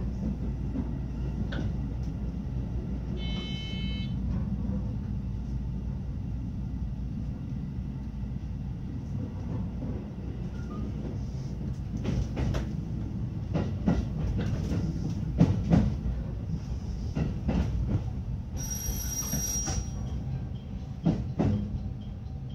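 Electric Special Rapid train running, heard from the driver's cab as a steady low rumble. In the second half the wheels clatter over rail joints and points. A brief electronic tone sounds about three seconds in, and a longer one near nineteen seconds.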